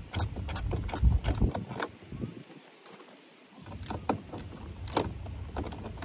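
Ratchet wrench clicking in short irregular runs as the mirror's mounting nuts are unscrewed, with a quieter pause in the middle.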